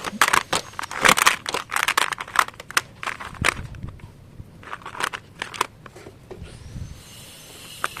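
Crinkling packaging and sharp clicks and taps from handling a newly unboxed item, dense for the first few seconds and then thinning out.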